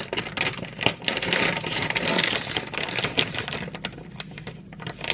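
Clear plastic bags of kit parts being handled and lifted from a cardboard box: the plastic crinkles and rustles, with many small clicks and knocks from the parts inside.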